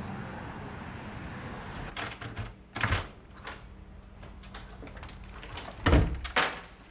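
A front door unlatched and swung open with a few clicks and a knock, then shut with two loud knocks close together near the end as the latch catches.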